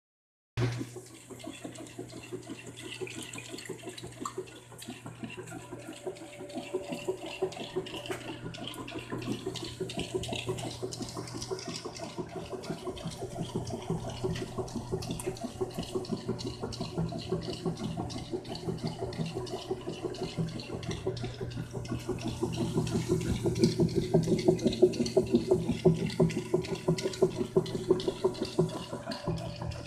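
Whirlpool LSQ220H0 top-load washing machine filling, water splashing into the tub over a steady low hum, the splashing growing louder over the last several seconds.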